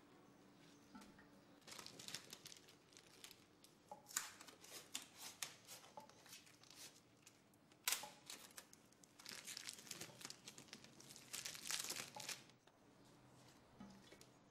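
Dry crackling and scraping in irregular bursts, with sharper cracks near the middle and a dense spell near the end: crumbling plaster being picked and scraped at a cracked, holed wall by hand.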